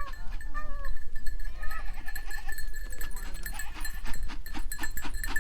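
Goats bleating as the herd is driven along, with several short calls in the first couple of seconds and scattered clicks and knocks throughout.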